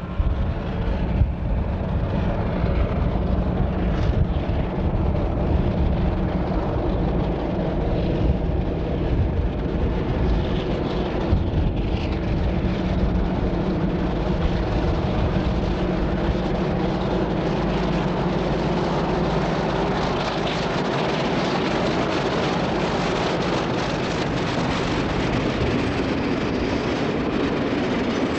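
Diesel locomotive working under load as it approaches hauling oil tank wagons, its engine note steady with deep rumble. From about two-thirds of the way through, the engine gives way to the rolling rumble and wheel noise of the tank wagons passing.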